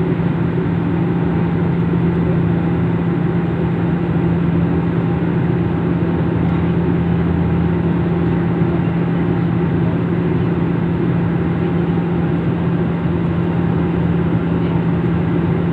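Steady drone of an aeroplane, with an unbroken low hum and a faint steady higher tone.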